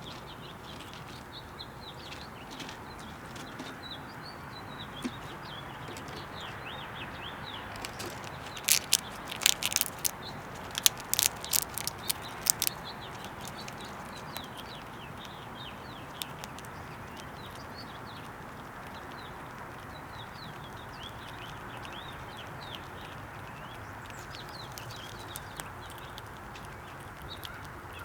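Small birds chirping in many short, high calls over a steady background hiss. From about eight to thirteen seconds in comes a quick run of sharp, loud clicks and taps.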